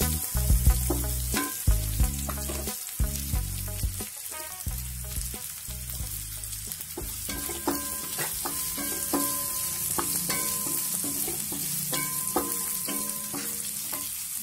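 Sliced onions and green capsicum sizzling in hot oil in a non-stick pan, with a wooden spatula stirring and clicking against the pan throughout.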